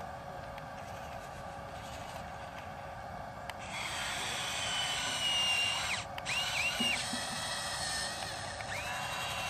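Small electric motors of an RC excavator running: a steady hum, then about three and a half seconds in a louder high-pitched motor whine starts. The whine stops briefly and its pitch rises and falls as the machine works.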